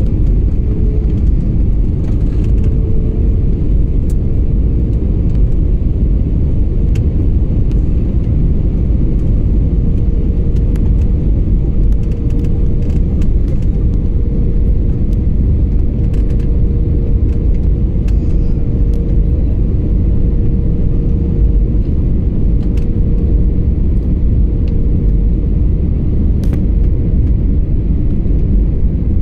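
Steady loud rumble of an airliner's cabin in flight on approach to landing, with a faint steady hum running through it.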